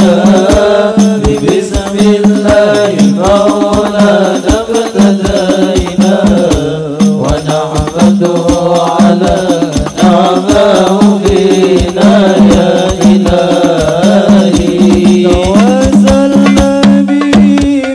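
A group of male voices singing an Islamic devotional song together into microphones, backed by hadrah frame drums beaten in a fast, steady rhythm.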